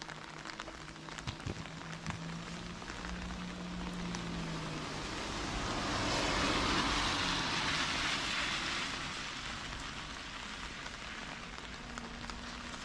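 Steady rain on a wet road, with a rushing hiss that swells and fades over several seconds in the middle.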